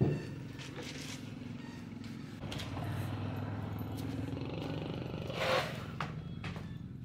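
A small engine running steadily, growing louder about two and a half seconds in, with a sharp knock at the very start and a short louder sound about five and a half seconds in.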